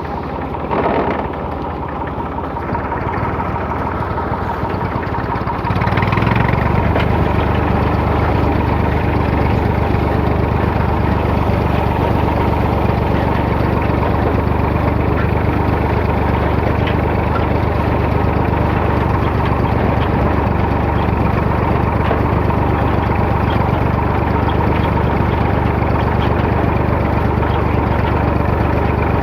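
Small Ferguson tractor's engine running, growing louder over the first few seconds, then from about six seconds in running steadily at a higher speed.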